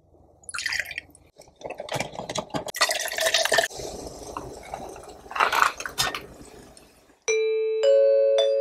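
Liquid pouring and splashing into a glass, with irregular clinks. About seven seconds in, a bell-like chime melody begins, with a new ringing note every half second or so.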